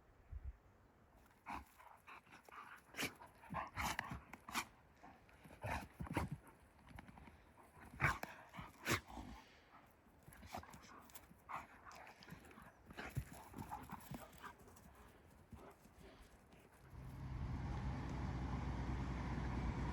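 Irregular close clicks and scuffs for most of the time, then about 17 seconds in the steady running of a heavy machine's engine comes in and carries on.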